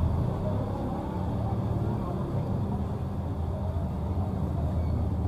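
Steady low rumble of a vehicle moving slowly, heard from inside its cabin, with the voices of people outside mixed in.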